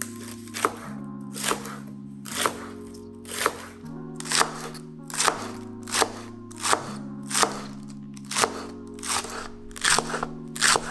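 Chef's knife slicing through spring onions onto a wooden cutting board: a crisp crunch with each stroke, about one to two a second, coming faster partway through. Background music runs underneath.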